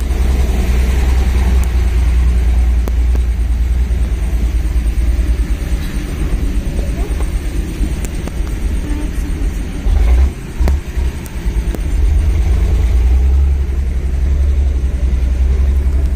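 Engine running with a steady low rumble as the ferry moves across the river, the rumble briefly dropping and breaking up about ten seconds in.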